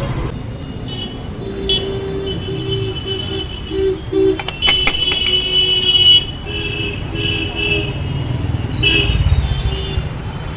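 Street traffic with a low rumble and many short horn toots, one held for over a second around the middle, with a few sharp clicks just before it.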